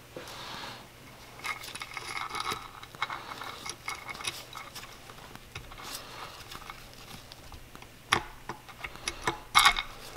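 Camshaft and cam chain being worked out of a Yamaha YZ250F cylinder head by hand: light metallic clinks and chain rattles, with the sharpest clinks about eight seconds in and again a second or so later.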